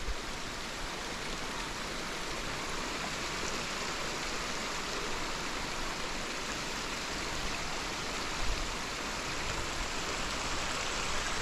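Steady, even rushing noise, of the kind running water makes, with no break.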